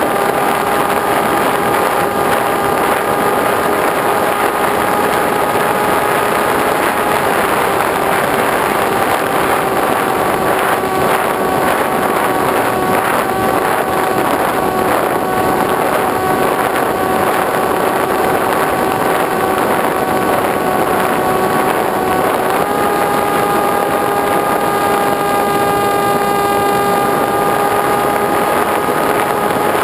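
Propeller motor of a small RC aircraft whining steadily, heard from the onboard camera with a strong rush of wind over the microphone. The pitch steps up about two-thirds of the way through as the throttle is opened.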